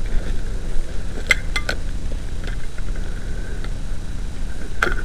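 Footsteps pushing through dry grass and brush over a steady low rumble, with a few sharp snaps: three close together about a second and a half in, and one near the end.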